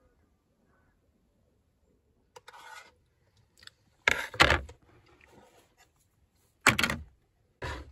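Plastic camping plates and cutlery being handled and set down on a wooden table: a faint rattle about halfway in, then three short, loud clatters, the first as a plate comes down.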